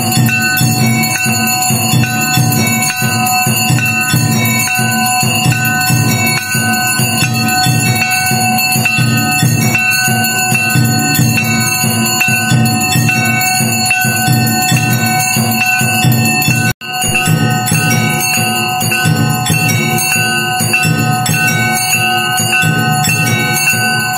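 Temple bells ringing continuously over a fast, steady drumming, the clangour of an evening aarti. The sound cuts out for an instant about seventeen seconds in.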